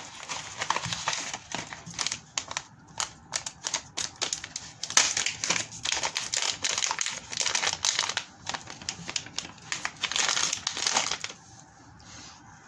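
Plastic packaging crinkling and rustling in quick, irregular crackles as it is handled and unwrapped; it stops shortly before the end.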